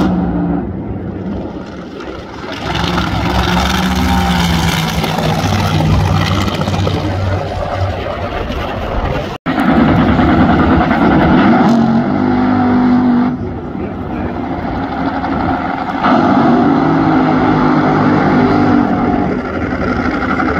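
Nitromethane-burning supercharged Hemi V8 Funny Car engines running loud at the drag strip, mostly during tire-smoking burnouts. The sound cuts out for an instant about nine seconds in, then comes straight back loud.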